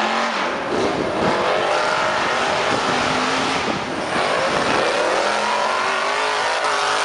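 Two tube-frame off-road race buggies' engines revving hard as they climb a steep dirt hill side by side, their pitch swinging up and down over and over.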